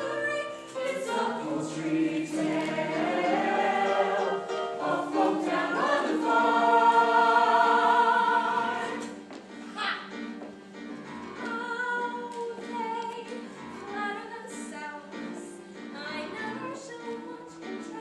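Ensemble of voices singing a musical-theatre number with accompaniment, swelling to a loud held chord about halfway through, then falling back to quieter music.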